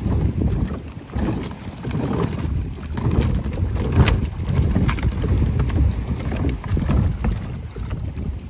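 Wind buffeting the microphone over water sloshing against a floating plastic pontoon walkway, with scattered knocks and clicks as the pontoon is walked on, the sharpest about halfway through.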